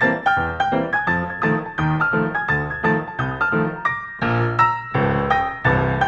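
Background music: a piano playing quick, evenly spaced notes, with fuller chords about four seconds in.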